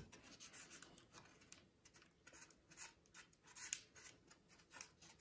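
Faint scraping and light clicks of laser-cut wooden panels being squeezed together by hand as their tabs slide into the slots, with a slightly louder knock a little past halfway.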